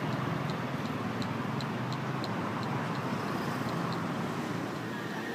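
Steady street traffic noise, with a series of light ticks about three a second that fade out about four seconds in.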